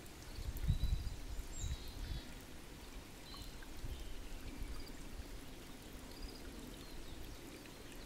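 Water trickling steadily into a small shallow pool, with a few short, faint high bird chirps now and then. A brief low rumble about a second in.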